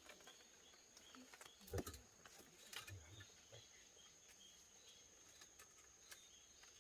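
Near silence: quiet outdoor room tone with a thin, steady high tone and a few faint knocks about two and three seconds in.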